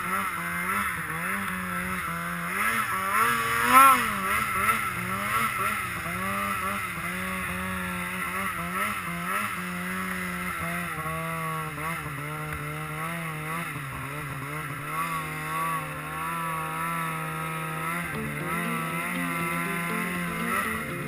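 Polaris RMK Pro snowmobile's two-stroke engine running under load while ploughing through deep snow. Its pitch rises and falls with the throttle, with a sharp rev about four seconds in.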